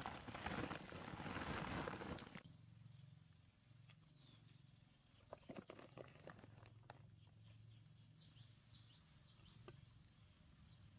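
Dry rustling of a woven plastic sack and leafy plants as dug-up bulbs are pushed into it, for about two and a half seconds, followed by a few light knocks as it is handled. A bird chirps several times in quick falling notes near the end.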